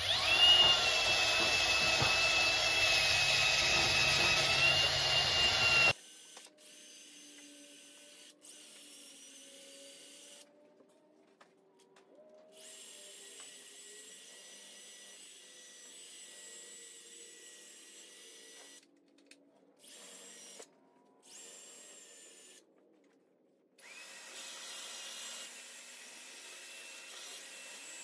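Cordless drill spinning a wire wheel brush, scrubbing carbon out of the combustion chambers of a 6.1 Hemi aluminium cylinder head. It runs loud and steady for about the first six seconds, then carries on much quieter, cutting out briefly a few times.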